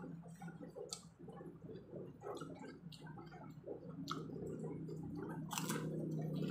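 Close-up eating sounds: wet chewing and smacking, with a few sharp crunches of Oishi Shrimpon prawn crackers, the loudest about five and a half seconds in. A steady low hum runs underneath.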